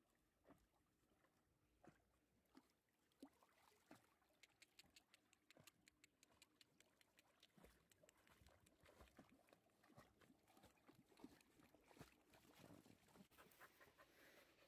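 Near silence, with only faint, irregular ticks and patter that come more often after about four seconds.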